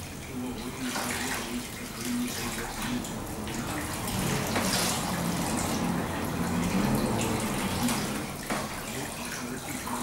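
Water running from a hand-held shower sprayer onto hair during a rinse at a salon backwash basin: a steady spray and splash.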